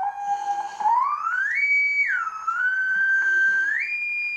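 Sine test tone from a small oscillator played through a Brüel & Kjær Type 2706 power amplifier into a bare loudspeaker, its pitch swept by hand: it holds, glides up, drops back, then climbs again to a higher pitch and holds. The tone carries audible overtones, some distortion in the test chain.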